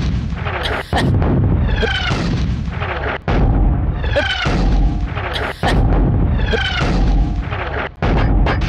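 Cannon-fire sound effect on a loop: a loud rumbling boom that restarts suddenly about every two and a half seconds, four times, each with a falling whistle above it.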